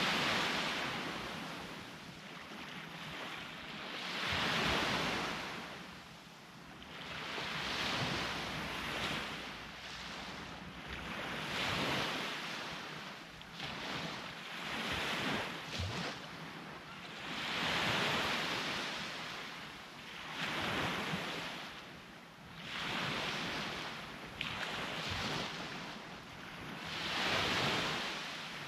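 Sea waves breaking and washing up on a beach, a new surge about every three to four seconds, with some wind buffeting the microphone.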